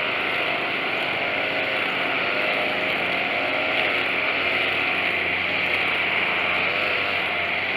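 Tanaka TCG22 string trimmer's 22 cc two-stroke engine running steadily, its pitch wavering a little. It runs smoothly on a newly replaced carburetor.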